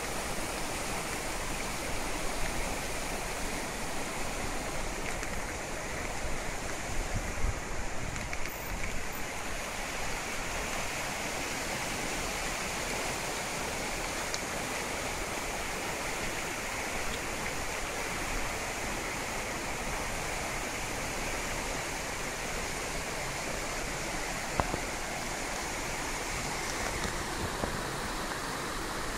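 A rain-swollen ravine in flood: muddy floodwater rushing and churning down the channel in a steady, continuous torrent.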